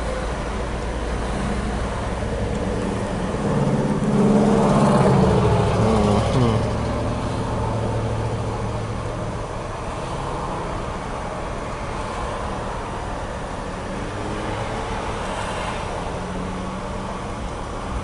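2008 Chevy Equinox V6 engine idling, swelling briefly about four seconds in and falling back in pitch. The engine has crankshaft position sensor codes set (P0335/P0336), so its speed is not being read.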